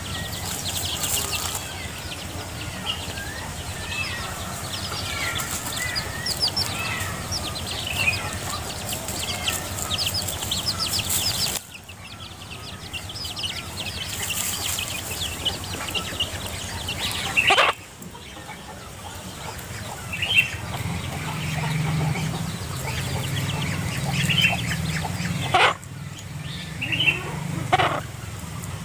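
A hen scratching through dry leaf litter, with her chicks peeping and dry leaves and twigs rustling and crackling. The peeping is thick in the first ten seconds or so and sparser after, and a few sharp snaps come in the second half.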